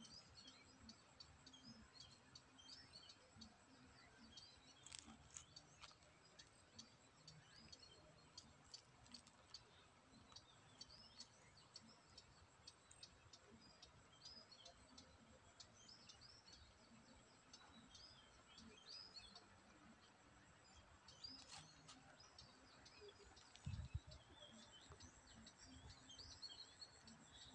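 Faint birdsong: many small birds chirping on and off in the background, with a brief low thump near the end.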